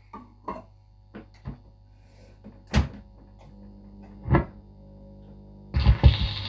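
Record player set up to play a record: scattered handling clicks and two louder knocks over a steady hum from the player. Near the end, a few thumps as the stylus is set down, then a steady crackly surface hiss from the spinning record.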